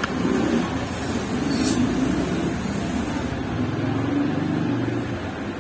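Steady background rumble of road traffic, with a short high hiss nearly two seconds in.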